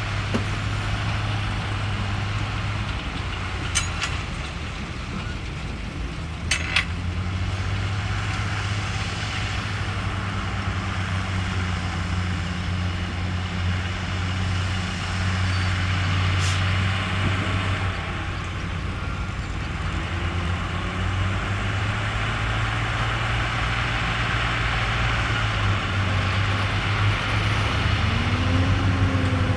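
Heavy diesel engine of an earthmoving machine running steadily under load, with a few sharp metallic clanks about four and seven seconds in.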